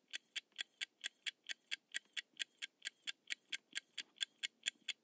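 Countdown-timer clock-ticking sound effect: a fast, even ticking, about four to five ticks a second, marking the time left to answer.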